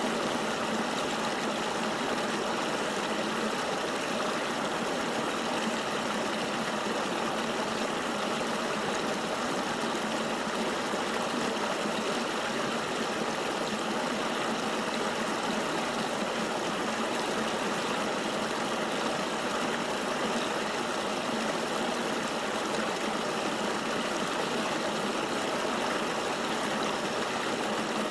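Steady rushing of a flowing river, an even wash of water noise that stays constant.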